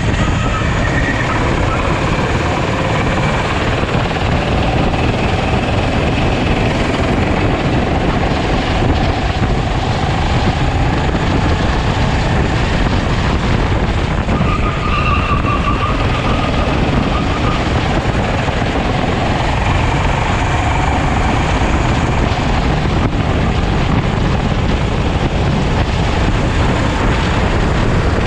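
Sodi kart engine running hard on track, its pitch rising and falling, under heavy wind noise on an onboard camera microphone.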